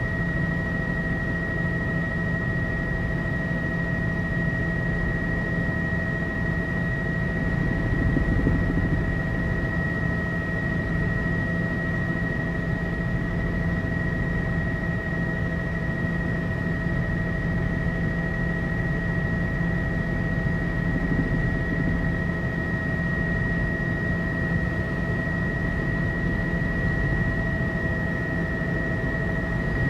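Tour helicopter in steady cruising flight, heard from inside the cabin: an even drone of engine and rotor with a steady high-pitched whine over it.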